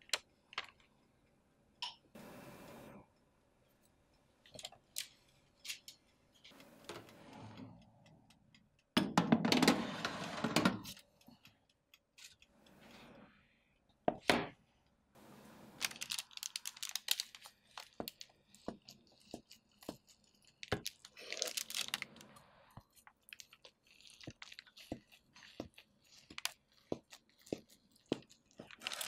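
Kitchen handling sounds: scattered crackling and clicking, with a louder burst of noise lasting about two seconds about nine seconds in. Near the end a knife crunches through a crisp-baked stack of potato pancakes topped with cheese.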